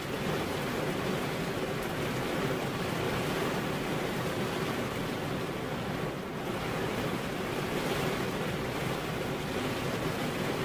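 Steady heavy rain falling, an even hiss with no distinct drops standing out, easing slightly for a moment about six seconds in.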